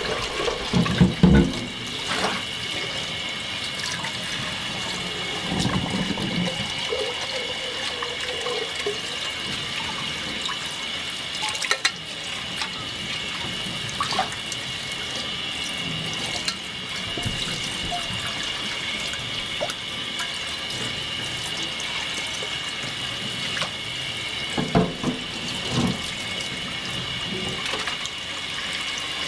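Kitchen tap running steadily into a rice cooker's inner pot and a stainless steel sink while rice is rinsed by hand. A few louder swishes and knocks come as the rice and pot are handled, near the start, about six seconds in and near the end.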